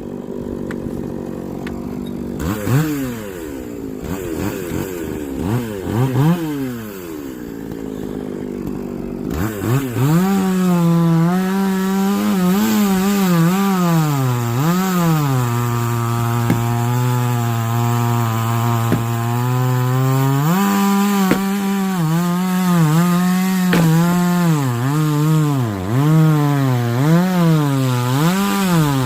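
Two-stroke chainsaw, revved in a few short bursts, then cutting continuously through a log from about nine seconds in; its engine pitch dips under load and rises again over and over.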